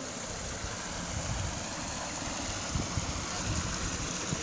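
Water running over a small weir in a stream, a steady rushing hiss, with a few low thumps about a second in and again near three seconds.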